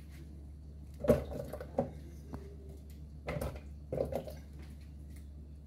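Pineapple and guava chunks dropped by hand into a plastic blender jug of water: four separate plops and splashes, each with a knock against the jug.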